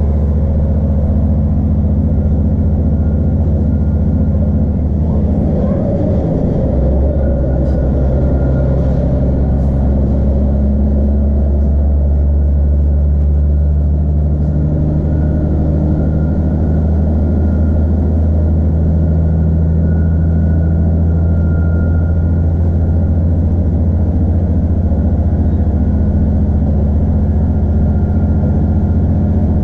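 Cabin noise inside an Iarnród Éireann Class 2600 diesel multiple unit under way: the steady drone of its diesel engine with the rumble of the wheels on the rails. The engine note shifts a little a few seconds in and again about halfway through.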